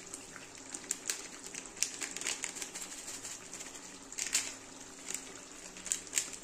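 Thick chicken kosha curry simmering and spitting in a metal pan on the gas flame, with irregular soft pops and crackles, a few louder than the rest. The gravy is cooked down to a thick reduction in the meat's own juices, with no water added.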